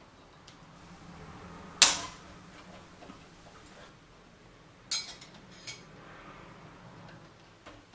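Steel bonsai root cutters snapping through a thick Japanese maple root once, sharply, about two seconds in. Later come a few lighter clicks and knocks, with a faint rustle of dry roots being handled.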